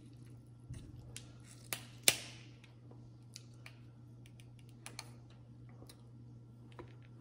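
Seafood shells being cracked and peeled by hand: scattered small clicks and crackles of shell, with one loud sharp snap about two seconds in.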